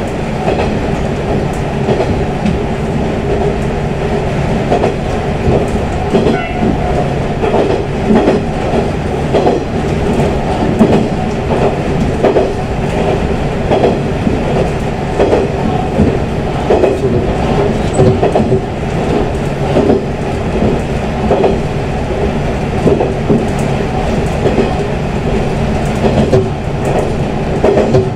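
Tenryū Hamanako Railroad diesel railcar running at speed, heard from on board: a steady engine and running noise with an irregular clickety-clack of wheels over rail joints.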